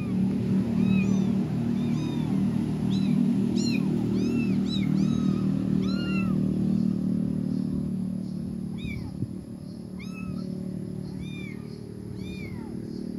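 Kittens meowing over and over in short, high-pitched calls that rise and fall, about one or two a second, with a gap past the middle. A loud, steady low hum runs underneath.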